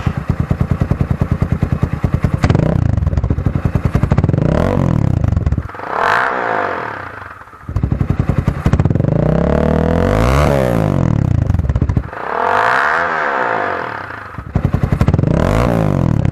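Motorcycle engine idling and being revved several times through an aftermarket dual-outlet slip-on muffler fitted with a 51 mm catalytic-converter-type silencer insert; each rev rises and falls, with the idle's rapid pulsing between. With this insert the exhaust sounds bassy and is only slightly quieter, cut by about 10–15% by the owner's reckoning.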